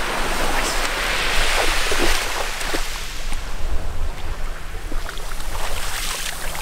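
Small waves washing up a pebbly shore, swelling and fading, with wind rumbling on the microphone.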